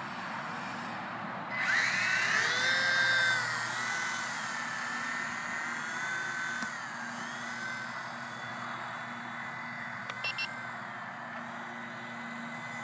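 Small electric RC helicopter (WLToys V911 with carbon fiber main shaft) flying: its motor and rotor whine rise about one and a half seconds in, then hold with a pitch that wavers as the throttle changes. Two short high beeps come near the end.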